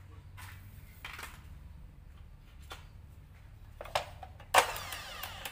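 Modern M3700B 7-inch miter saw being handled with its motor off: light rustling, then a sharp click about four seconds in and a louder metallic clack just after as the saw head is pushed down, with a brief ringing that dies away.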